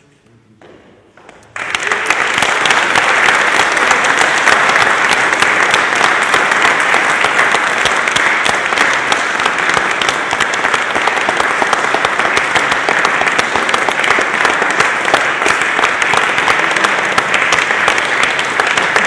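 Audience applauding, breaking out suddenly about a second and a half in and then going on steadily.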